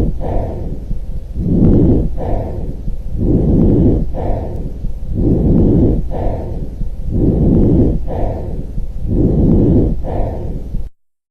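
Recorded lung breath sounds as heard through a stethoscope: a rushing, muffled sound rising and falling with each breath in and out, roughly one breath every two seconds. The sound cuts off abruptly near the end.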